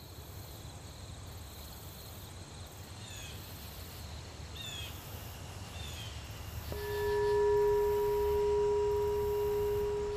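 Outdoor ambience with insects trilling in regular pulses and a bird chirping a few times, then about two-thirds of the way in a meditation bowl bell is struck once and rings on steadily.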